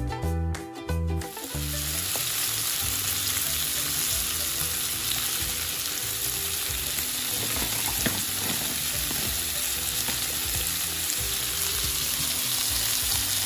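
Brief music, then cubes of meat sizzling steadily in hot sunflower oil in a cast-iron kazan.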